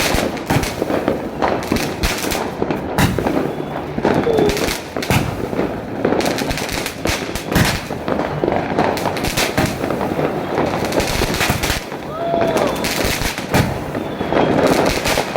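Fireworks going off continuously: a dense run of sharp bangs over steady crackling, with a couple of short whistles that bend in pitch, one about four seconds in and one near the end.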